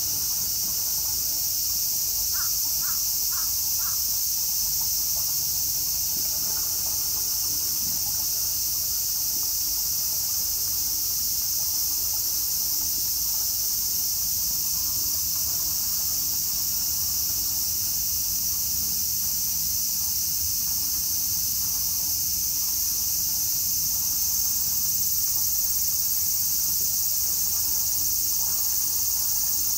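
Steady high-pitched drone of cicadas in summer. Four short calls sound in quick succession a couple of seconds in.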